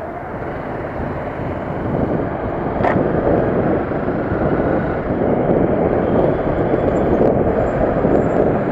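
Riding noise on a Honda CBR250R motorcycle: wind rushing over the microphone with the engine beneath it, growing louder over the first few seconds as the bike picks up speed, then holding steady.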